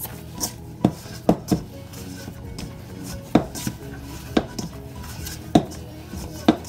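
Sharp, irregular knocks and clinks of kitchenware on a hard surface, about nine in all, some in quick pairs, while flour dumpling dough is being kneaded by hand.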